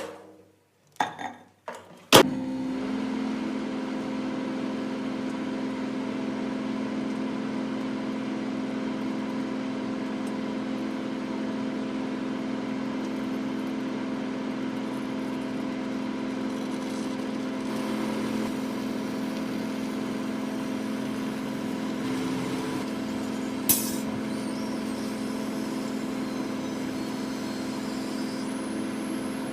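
Microwave oven starting with a few clicks and a loud click, then running with a steady electrical hum. About 24 seconds in there is one sharp snap.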